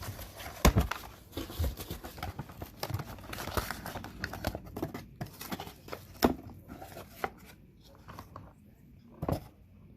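Hands rummaging in an opened cardboard box: rustling and crinkling of packing material and flaps, with scattered clicks and a few sharper knocks.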